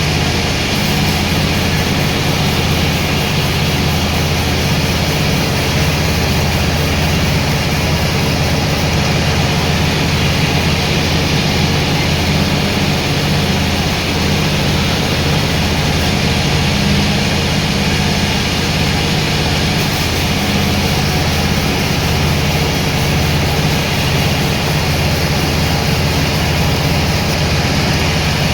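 Sawmill machinery running: a loud, steady engine-like drone with no change in pitch or level.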